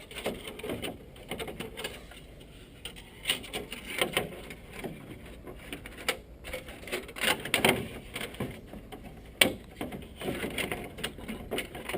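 Irregular clicks, knocks and scraping of hand tools and parts being handled while working on a car's front bumper bolts and trim mounts.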